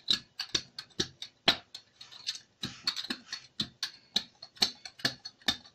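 Thin flatbread cooking in a lightly oiled pan, the oil crackling with irregular sharp pops, a few a second.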